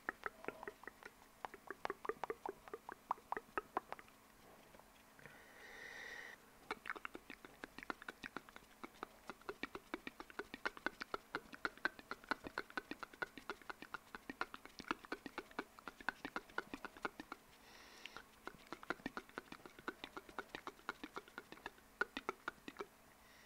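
Close-miked wet mouth sounds: rapid lip and tongue clicks and smacks, several a second, interrupted twice by a short breathy sound.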